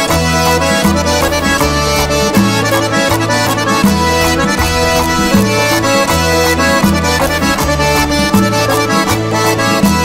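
Accordion playing the lively instrumental introduction of an Ossetian song, over a steady repeating bass line and a regular percussion beat.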